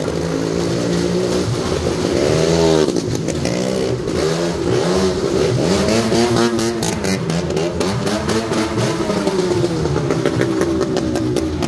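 Motorcycle engine revving up and down several times as the bike rides around the floor of a wooden well-of-death drum.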